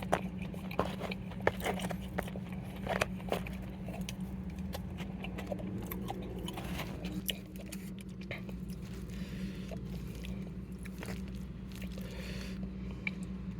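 A person chewing a mouthful of noodles, with scattered small clicks and scrapes of utensils and food container throughout, over a steady low hum.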